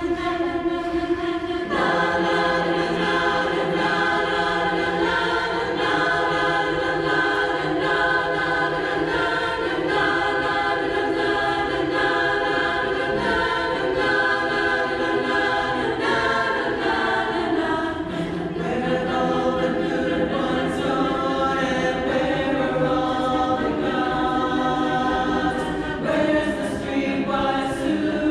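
Women's chorus singing a cappella in sustained multi-part harmony. A single held note opens, then the full chord with a low voice part comes in about two seconds in.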